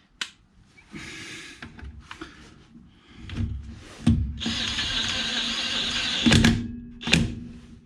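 DeWalt DCF899 18V cordless impact wrench hammering on a car wheel nut on its third power setting. There is a short softer run about a second in, then a loud steady run of about two seconds past the halfway point, ending in a couple of sharp knocks.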